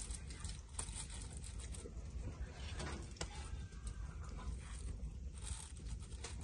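Hands handling raw whole fish on a foil-lined baking tray: aluminium foil crinkling and crackling in short, irregular bursts, with soft rustles and clicks as the fish are pressed onto onion slices, over a steady low rumble.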